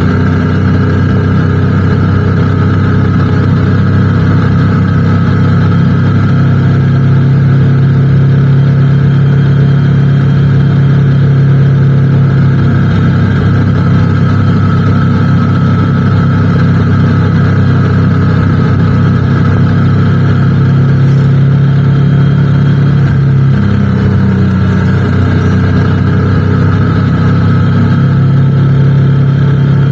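Motorcycle engine running steadily under way, loud and even, with a brief change in engine pitch about three-quarters of the way through.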